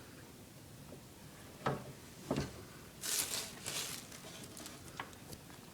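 Handling sounds of objects and packaging: two soft knocks, then about a second of rustling and a sharp click near the end.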